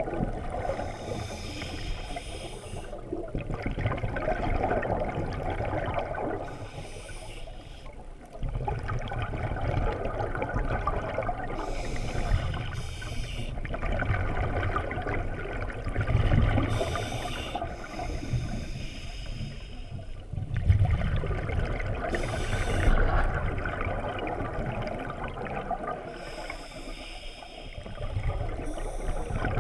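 Scuba diver breathing through a regulator underwater: a short hiss on each inhale, then a longer low bubbling rumble of exhaled bubbles, repeating about every five seconds.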